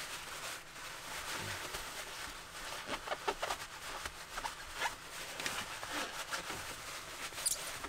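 Crumpled paper towel rustling and crinkling as it is rubbed over a Racor diesel fuel filter housing, with a steady run of small scratchy crackles.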